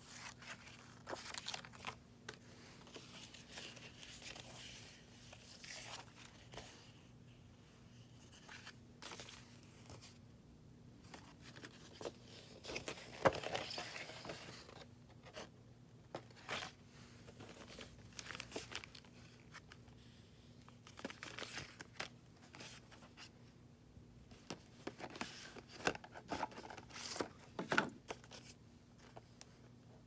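Paper and card pages rustling, crinkling and tapping as they are turned and handled, in short irregular bursts with a longer, louder rustle about halfway through. A faint steady low hum runs underneath.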